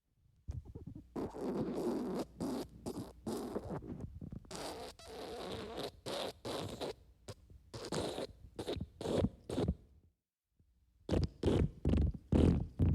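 Wet farts: a long run of short, sputtering bursts, a pause about ten seconds in, then a few more short bursts near the end.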